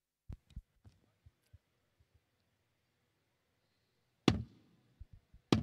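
Two sharp, loud knocks about a second and a quarter apart, each with a short ringing tail, after a few faint dull thumps.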